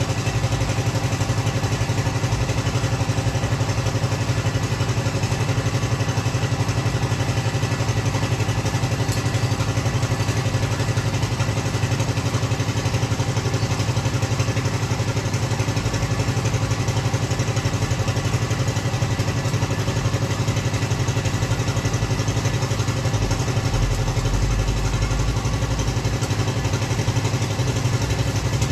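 Engine of a bore pile machine running steadily, driving the machine's gearbox to wind steel bar into a spiral for pile reinforcement. A deeper rumble joins in briefly near the end.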